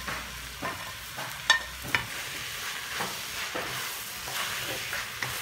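Sliced onions, tomatoes and green chillies frying with a steady sizzle in a non-stick kadai, while a wooden spatula knocks and scrapes against the pan and plate several times.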